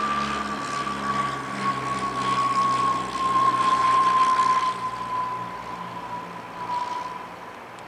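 Piper PA-44 Seminole twin-engine piston plane landing, its engines running low and steady, loudest about halfway through and fading near the end. Over it sits a steady high whine that slowly sinks in pitch.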